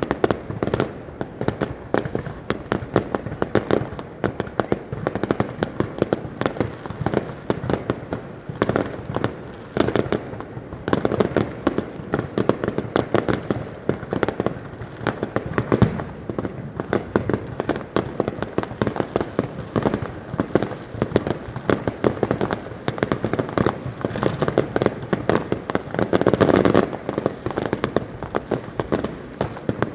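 Fireworks going off in a continuous dense barrage: rapid bangs and crackling pops, many a second, without a pause.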